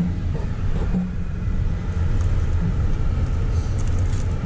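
Steady low rumble of a car's engine and road noise, heard from inside the cabin as the car drives slowly through town.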